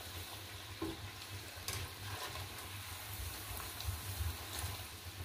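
Hara bhara kababs deep-frying in hot oil in a kadai: steady sizzling and bubbling, with a few faint clicks of a wire skimmer moving through the oil and lifting them out, over a low steady hum.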